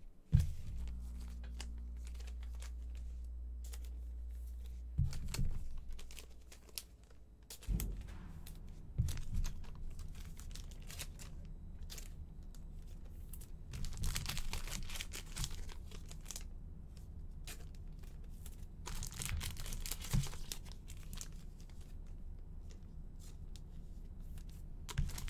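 Hands handling trading cards and tearing open foil card-pack wrappers: two longer bursts of tearing and crinkling, around the middle and about three-quarters through, among light clicks and card slides. A low steady hum runs through the first eight seconds or so.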